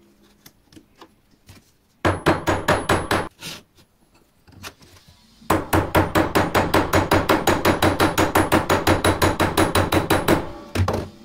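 Small hammer striking titanium saw-frame parts on a little steel bench anvil. A few faint taps come first, then a short run of quick strikes, then a longer run of fast, even strikes lasting about five seconds, with a faint ring from the metal under each blow.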